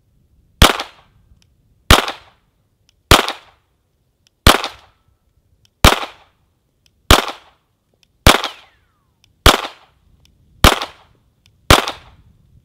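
Semi-automatic pistol fired ten times at a slow, even pace, about one shot every second and a quarter, each shot with a short ringing tail.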